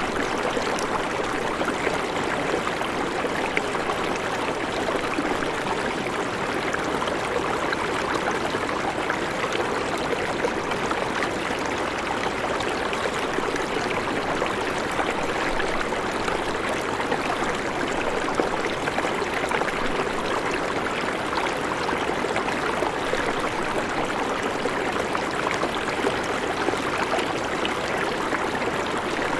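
River water flowing, a steady, even murmur.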